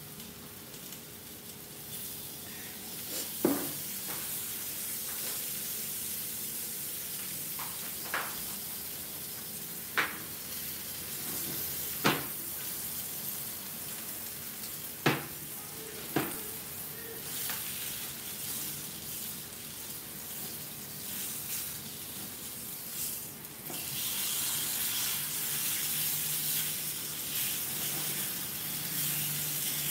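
Salmon steak sizzling as it fries in oil in a cast-iron skillet: a steady hiss broken by several sharp pops, growing louder about three-quarters of the way through.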